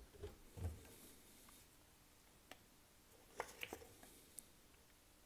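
Near silence with a few faint clicks and taps as a hand handles the wooden door knobs of a pine cupboard and the card price tag tied to one of them, including a small cluster of clicks about three and a half seconds in.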